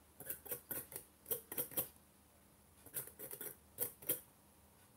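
Metal tweezers clicking and tapping against the freshly installed coils on a Dejavu Mark #1 RDA's build deck while the coils are adjusted and shaped. The clicks are faint, rapid and come in two clusters, with a pause of about a second between them.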